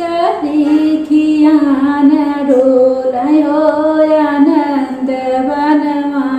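A woman singing a Bhojpuri pachra, a devotional song to the goddess, solo and unaccompanied. She holds long notes, with small slides and ornaments between them.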